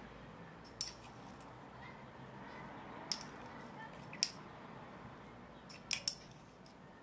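A few light, sharp glass clinks, about five spread over several seconds with two close together near the end, as a small glass bowl of citric acid is handled over glass jars.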